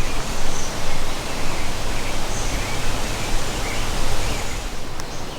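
Strong wind blowing over the microphone: a steady rushing with a heavy low rumble.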